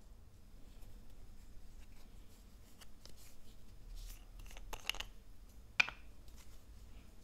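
Plastic liquid foundation tube handled and its cap taken off: faint plastic rustles and light clicks, a few stronger clicks around five seconds in and one sharp click just before six seconds in.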